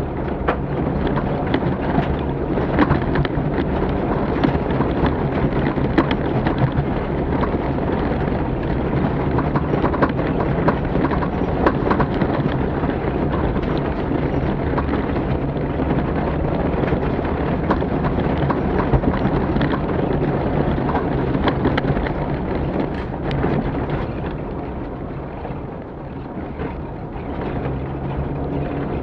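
Off-road rally vehicle driving hard over rough terrain, heard from on board: a steady engine drone buried under a heavy rumble, with constant knocks and rattles from the jolting. The rumble eases briefly near the end.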